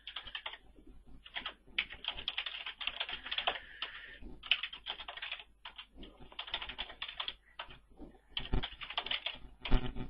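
Typing on a computer keyboard: quick runs of keystrokes broken by short pauses, with a couple of louder knocks near the end.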